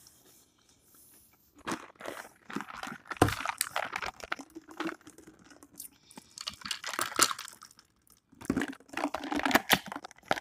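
Close-miked crunchy chewing of fresh cucumber, in irregular bursts of crunches. It starts after a quiet first second or two, with a brief lull near the end.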